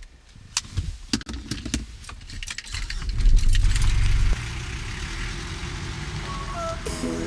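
Mitsubishi pickup truck driving off: a burst of low engine rumble a few seconds in, settling into a steady drive-by drone. It is preceded by a run of sharp clicks and knocks.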